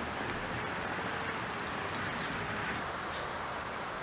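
Steady outdoor background noise with no clear event, apart from one faint click shortly after the start.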